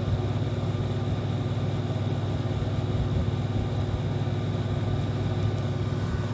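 Air conditioner running with a steady low mechanical hum and an even whirring hiss.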